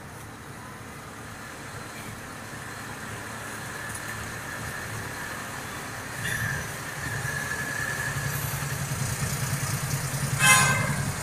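Bus engine running, with a low pulsing rumble that grows louder as a second bus pulls past close alongside. A brief loud burst comes near the end.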